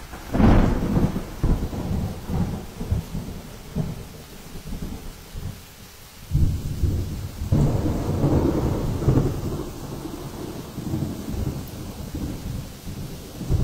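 Hurricane wind and driving rain, with gusts buffeting the microphone in rumbling surges: a strong one about half a second in, fading over several seconds, and another building from about six seconds in.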